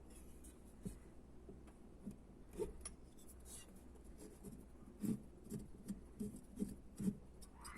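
Faint small clicks and light metal taps from hand work on an engine piston as the gudgeon pin circlips are fitted. The taps cluster about five to seven seconds in.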